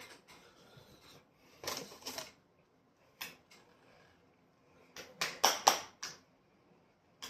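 Clicks and knocks of hands working at an onion dip container to get it open: a few separate sounds, then a quick run of four or five near the end.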